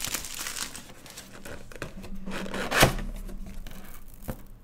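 Outer packaging covering being torn and peeled off a drone's box, with irregular crinkling and crackling and one sharper rip a little under three seconds in.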